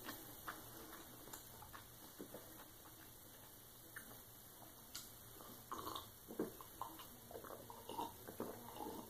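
A person sipping and swallowing juice from a glass: faint, short gulping and mouth sounds with small ticks, starting about halfway through after a few seconds of near quiet.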